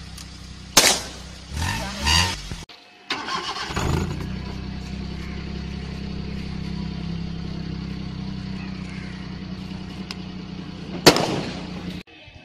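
Maruti Suzuki Alto's three-cylinder engine idling steadily, with a balloon stretched over its exhaust pipe being blown up by the exhaust. A balloon bursts with a sharp bang about a second in, and another bursts near the end.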